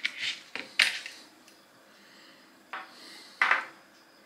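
Small metal fly-tying tools, including a wire whip-finish tool, clinking and scraping as they are handled: a few short, sharp clicks near the start and again about three seconds in.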